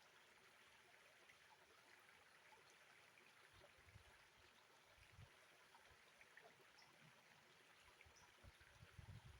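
Faint, steady flow of river water, with a few soft low bumps, the clearest near the end.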